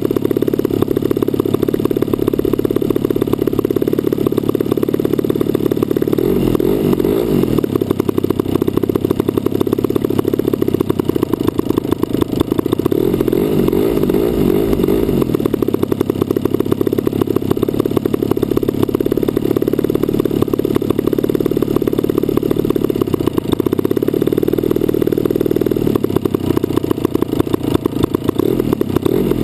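The DLE 55cc single-cylinder two-stroke gasoline engine of an RC Cessna 182 model runs steadily, heard close up through an onboard GoPro, so it sounds muffled. Its pitch shifts and wavers briefly three times, about six, thirteen and twenty-four seconds in.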